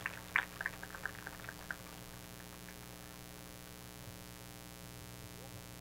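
Scattered hand claps from a small audience, irregular and thinning out, stopping under two seconds in. A low steady hum carries on underneath.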